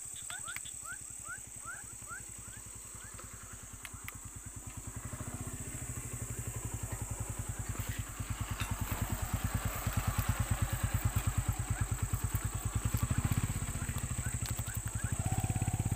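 Motorcycle engine idling with a steady, fast putter that grows louder through the middle of the stretch. A run of short chirps sounds at the start.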